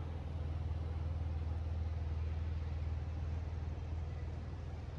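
Street traffic: a steady low engine rumble from a road vehicle.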